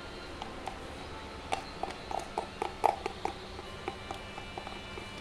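Irregular light taps and clicks of a spoon and plastic jar being handled, busiest about two to three seconds in.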